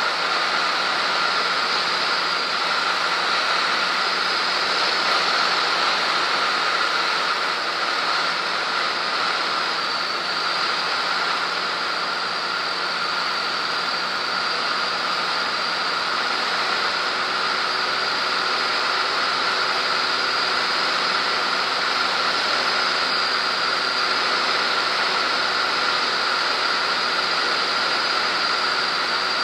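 Cessna T210's engine and propeller in steady cruise flight, a constant drone mixed with the rush of air over the airframe and camera.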